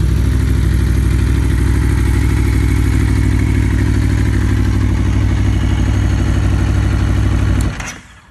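Aprilia Tuono V4 R's warm 999 cc V4 engine idling steadily, then switched off about three quarters of a second before the end, the engine note cutting out suddenly.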